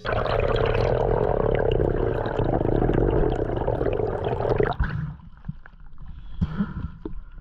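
Underwater rush and gurgle of water around the camera. About two-thirds through it gives way to lighter splashing and slapping of small waves as the camera breaks the surface.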